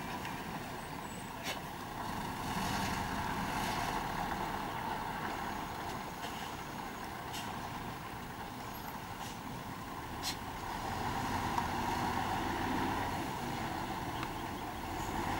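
Diesel concrete mixer trucks running as they reverse slowly, a steady engine rumble that grows a little louder past the middle as a truck comes closer. A few brief sharp clicks sound over it.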